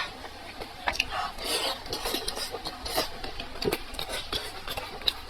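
Close-miked chewing and mouth sounds of a person eating: irregular wet clicks and smacks mixed with short rasping, crunchy bursts.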